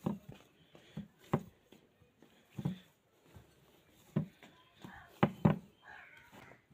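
Hands kneading nankhatai dough in a glass bowl: irregular dull thumps and knocks as the dough is pressed down and the bowl shifts, about seven in all, the loudest two close together a little after halfway.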